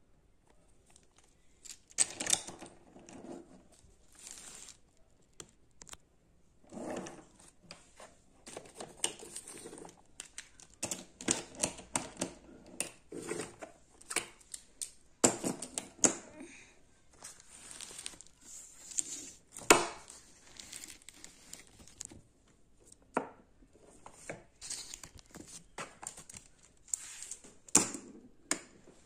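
Wooden toy train cars pushed by hand along wooden track, their wheels rolling with irregular clicks and clattering, starting about two seconds in.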